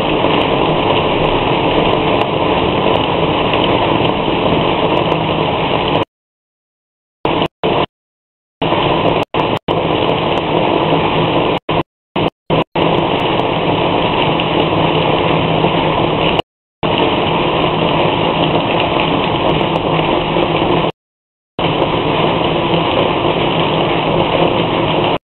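Rain falling, a loud steady hiss heard through a CCTV camera's microphone, with the audio cutting out to dead silence several times.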